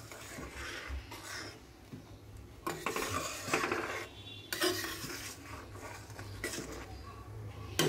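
A metal spatula stirring and scraping thick lentil dal in a wok, in several separate spells of stirring.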